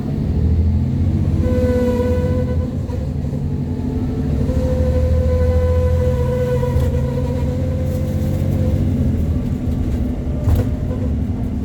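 Bus 8908's engine pulling hard uphill, with a strange high squeal over it: a short one about a second and a half in, then a longer one a few seconds later that holds for about four seconds. A sharp click comes near the end.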